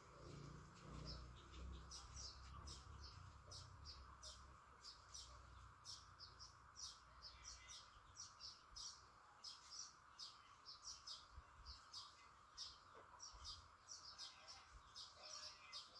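Faint, rapid, high-pitched bird chirping, many short chirps repeating throughout, over a steady faint background hiss.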